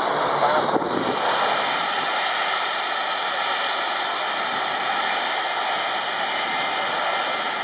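Boeing 757 jet engines running steadily on the ground, a constant whine over a broad rushing noise, starting about a second in after a moment of voices.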